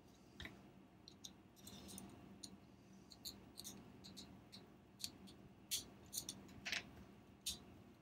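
Faint, irregular small clicks and taps of clear acrylic case pieces being handled and fitted together around a camera circuit board.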